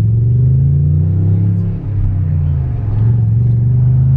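BMW car engine running, its low note rising, dipping about two seconds in, then rising again with the throttle.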